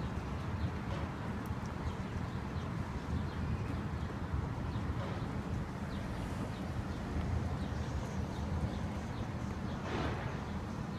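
Steady outdoor background rumble with faint, short, high chirps scattered through it.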